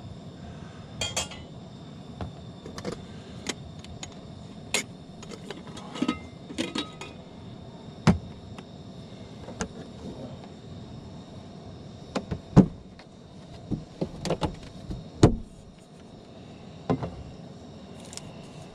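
Scattered knocks, clicks and clinks of gear and containers being handled while making coffee, over a steady hum. The loudest knocks come about eight, twelve and fifteen seconds in.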